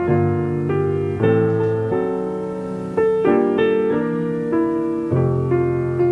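Keyboard music: a piano-like keyboard plays slow, sustained chords, a new chord struck every second or so and each fading before the next.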